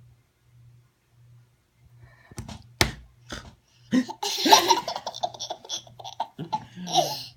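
Baby laughing hard in bursts with high squeals, from about four seconds in, after a sharp thump a little before that.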